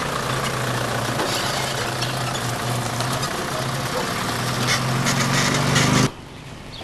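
Car engine running steadily with road noise, its hum rising in pitch near the end, then cut off suddenly about six seconds in.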